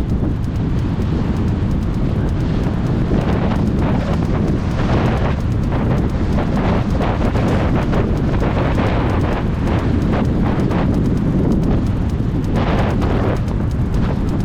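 Loud wind buffeting the microphone as a BMX bike is ridden at full speed: a steady low rumble with irregular gusts swelling over it from about three seconds in.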